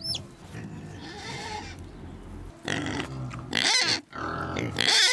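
Young pigs in a pen squealing, with loud rough, wavering squeals from about halfway through and the loudest run near the end.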